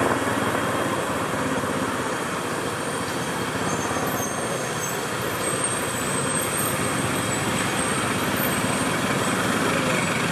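Steady street traffic noise: the engines of cars, trucks and motorcycles running close by in slow, dense city traffic.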